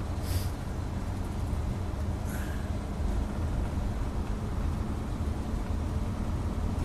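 Semi tractor's diesel engine and road noise heard from inside the cab while driving, a steady low drone. Two brief hisses come just after the start and about two and a half seconds in.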